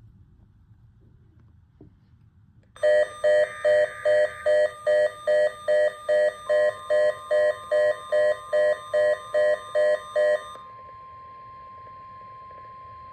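Weather radio alert: an electronic alarm beeps about two and a half times a second for roughly eight seconds, then gives way to a steady single-pitched alert tone, the weather radio's 1050 Hz warning tone, which heralds a broadcast tornado watch.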